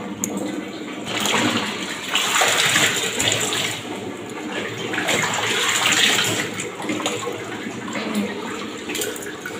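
Water running and splashing in surges, swelling and easing every second or two.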